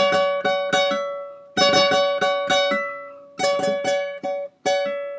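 Classical guitar playing a single-note lead phrase high on the neck, picked in short runs of plucked notes that ring and die away, with a pull-off worked into the line.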